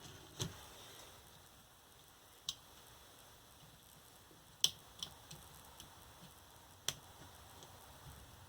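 A few sharp, light metallic clicks at irregular intervals, the loudest a little past halfway: the nickel connection strips on a scooter battery pack's 18650 cells being bent over by hand and tool.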